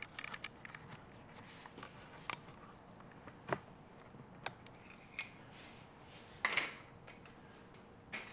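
Faint, irregular clicks and light rustles of handling, with a short scrape about six and a half seconds in.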